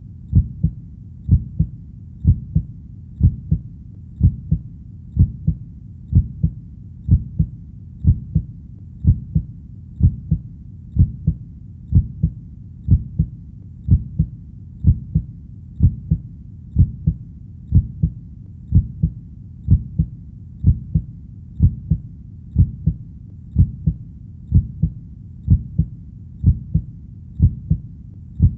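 Heartbeat, a steady lub-dub pulse of two low thuds about once a second, over a faint steady low rumble between beats.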